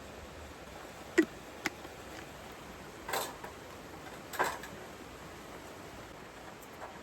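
Wood campfire crackling: a few scattered sharp pops and two short hissing bursts over a faint steady hiss.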